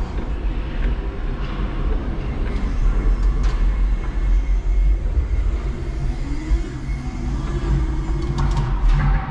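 5-ton electric forklift at work, heard from the cab: a steady low rumble as it drives, with a motor whine rising in pitch about six seconds in and a few sharp clicks near the end.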